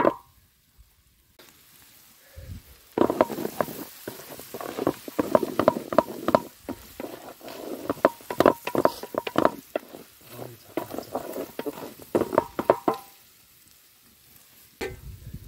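Wooden spatula scraping and knocking against a large metal pot as frying chicken is stirred, with sizzling underneath and the pot ringing briefly at the harder knocks. The stirring starts about three seconds in and stops about two seconds before the end.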